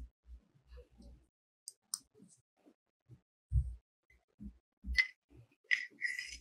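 Irregular light clicks and soft dull knocks of small metal parts being handled and set down, with a short scratchy rasp near the end.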